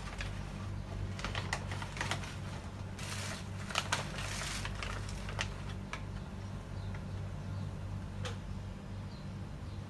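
A metal spoon clicking and scraping against a container as an ingredient is scooped out for the pot, in scattered light taps, loudest about four seconds in. A steady low hum runs underneath.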